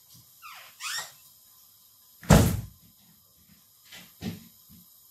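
Kitchen items being put away: a short squeak, then one loud thump a little over two seconds in, followed by two lighter knocks, like a cupboard door and objects being set down.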